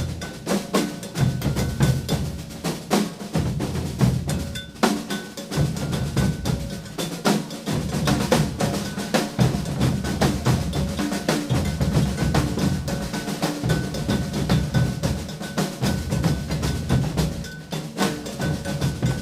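Maracatu percussion group playing a toque: deep alfaia bass drums in repeating phrases under dense caixa snare strokes and rolls, with a metal bell ringing through the rhythm.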